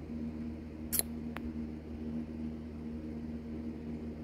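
Two light plastic clicks about a second in, the first louder, as the plastic base of an LED Christmas light bulb is handled between the fingers, over a steady low background hum.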